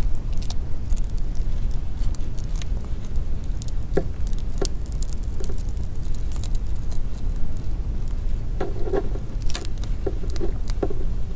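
Scattered small clicks and crackles of a phone's touchscreen digitizer being peeled off its frame and handled, over a steady low hum.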